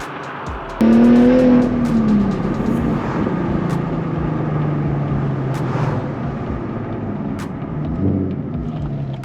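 Nissan 370Z's 3.7-litre V6 through an aftermarket Tomei exhaust. It revs sharply about a second in and the pitch falls away, then it settles into a steady low drone.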